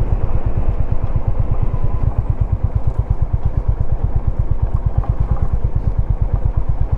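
Motorcycle engine running steadily on the move, heard as a fast, even low pulsing.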